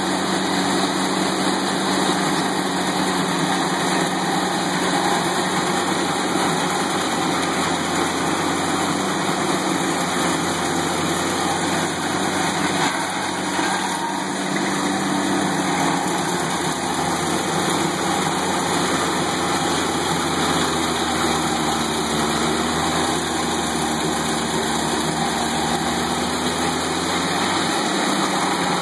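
Towable stump grinder's gas engine running steadily, its cutter wheel grinding into a stump. The engine note dips slightly for a few seconds about two-thirds of the way in.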